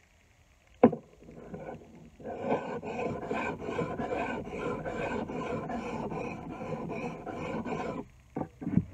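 A small steel blade rubbed back and forth on a sharpening stone, an even rasping at about three strokes a second, to sharpen it. A sharp knock about a second in, and two short knocks near the end.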